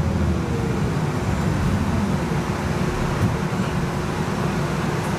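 Cabin noise inside a moving Siemens S70 streetcar: a steady low rumble of the car running on its rails, with a faint steady hum over it and a single light click about three seconds in.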